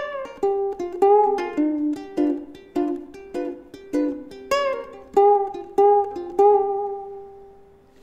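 Ukulele being fingerpicked, a steady run of plucked chords, the last one left to ring and fade away over the final second and a half. The recording has added compressor and reverb.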